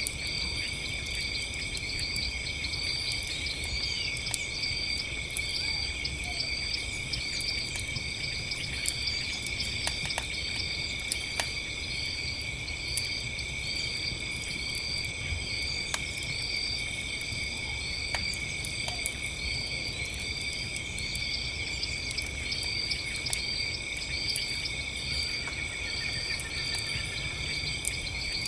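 Chorus of crickets and other night insects trilling steadily, one of them chirping about twice a second, with scattered sharp crackles and pops from a wood campfire.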